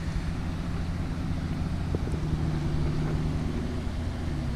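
A steady low engine hum running throughout, a little stronger in the middle.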